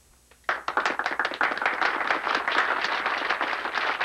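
A small audience applauding, starting about half a second in and going on steadily.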